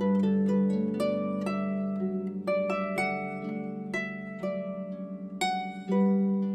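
Background music of plucked strings: a gentle melody of plucked notes, about two a second, over a held low note.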